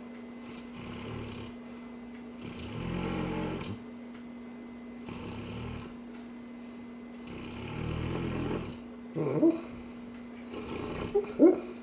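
Cane Corso snoring in its sleep: slow, rasping snores about every two and a half seconds. Near the end come two short, loud cries that bend in pitch, the whimpers of a dog dreaming.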